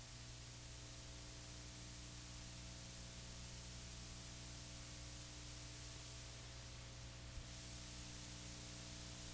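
Steady hiss with a low, even hum: the recording's own background noise with no programme sound. One faint click about seven seconds in.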